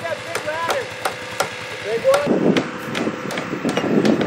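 Hammer striking wood or nails in a quick, steady run of sharp knocks, about three a second.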